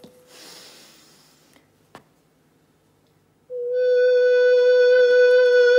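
After a brief quiet with a soft hiss and a click, a woman's voice comes in about three and a half seconds in, singing one loud, dead-steady note at about 500 Hz through a microphone and amplifier. The note is pitched to match a wine glass's resonant frequency so that the glass will vibrate to breaking point.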